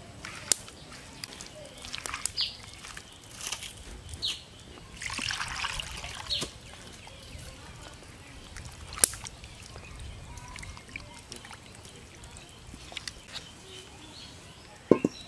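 A hand squelching and sloshing raw carp pieces through wet spice paste and water in a clay bowl, with sharp clicks now and then and a longer wet slosh about five seconds in.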